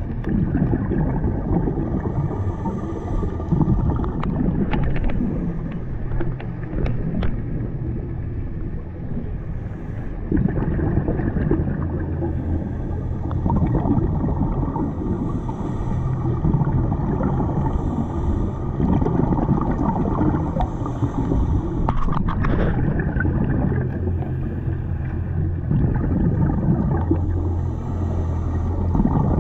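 Underwater ambience picked up through a diving camera: a steady muffled rumble of water, with the gurgle of scuba divers' exhaled bubbles every few seconds. A few sharp clicks come between about 4 and 7 seconds in and again at about 22 seconds.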